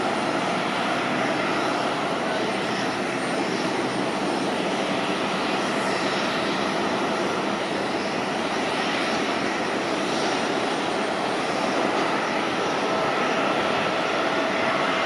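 Jet airliner engines running steadily: an even rush of air with a faint held whine.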